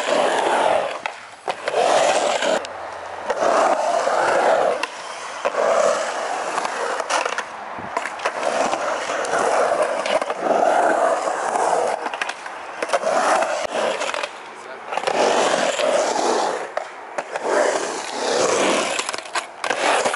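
Skateboard wheels rolling on a concrete skatepark bowl, the rolling noise swelling and fading again and again as the skaters ride up and down the transitions, with a few sharp clacks of the board.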